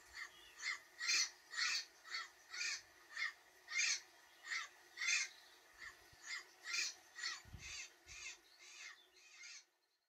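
Parrot squawking: a rapid series of harsh calls, about two a second, growing weaker toward the end.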